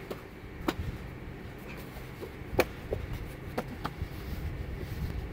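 Two people grappling in gis on foam mats: fabric rustling and shuffling with a few sharp slaps or knocks, the loudest about two and a half seconds in.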